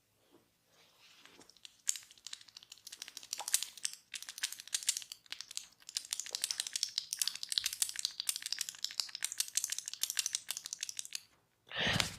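Dense, rapid crinkling crackle of fingers scratching and rubbing through hair on the scalp. It builds in about two seconds in, dips briefly near four seconds and stops shortly before the end.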